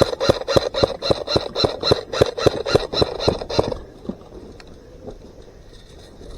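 Running footsteps with loose gear rattling at each stride, about four to five steps a second, stopping abruptly a little under four seconds in.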